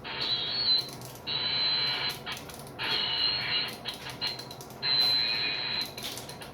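CB radio receiver audio on AM: about five short bursts of noisy, distant-sounding radio signal, each about a second long, each starting and stopping abruptly. Short clicks fall in the gaps between the bursts.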